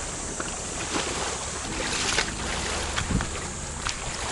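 Shallow seawater sloshing and lapping at the shore, with wind on the microphone and a few short clicks and knocks, and a low thud about three seconds in.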